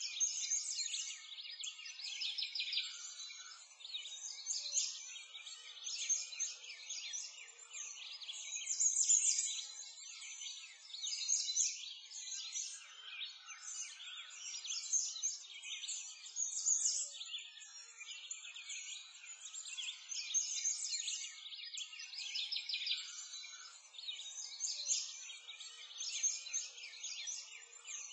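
A chorus of small songbirds chirping and trilling without a break, high-pitched and with no low sounds under it, like a nature ambience track.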